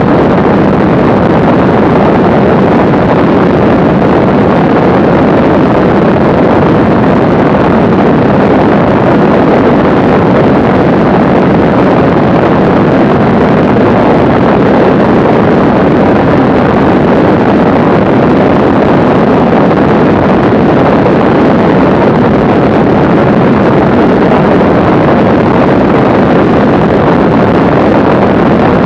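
Steady drone of a Mooney M20C's four-cylinder piston engine and propeller in level flight, mixed with a rush of wind on the microphone. The level stays constant throughout.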